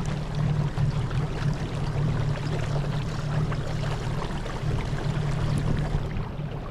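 Electric trolling motor running steadily at a low speed setting, a constant low hum, with water washing along the small boat's hull.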